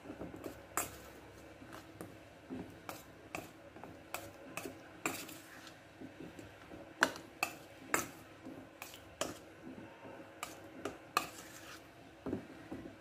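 Metal spoon scraping and clinking against a stainless steel bowl, stirring chopped chocolate as it melts over hot water: irregular knocks about once or twice a second.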